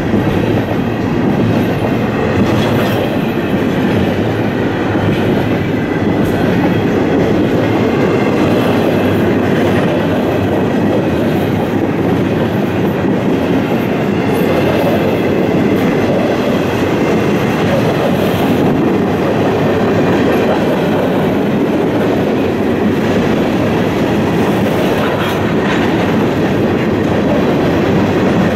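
Freight train rolling past, double-stack container cars followed by covered hopper cars: a loud, steady rumble and rattle of wheels on rail, with a few faint clicks.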